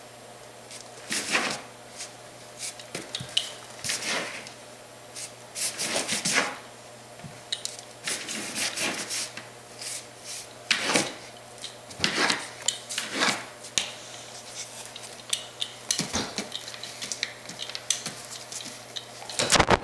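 A Weimaraner sniffing and mouthing at a stink bug: irregular short scuffs, clicks and smacks, some in quick clusters.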